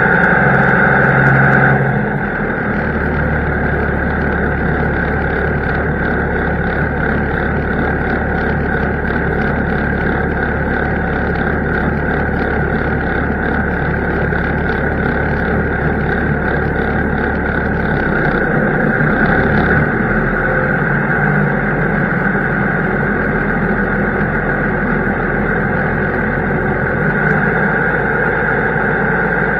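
Farm tractor's diesel engine running steadily, heard from inside the cab. Its engine note shifts about two seconds in and again around eighteen to twenty seconds in.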